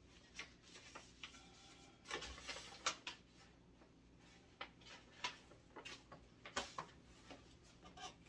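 Quiet, scattered light knocks, taps and rustles of things being handled and rummaged through in a cardboard moving box, about ten small strikes spread irregularly.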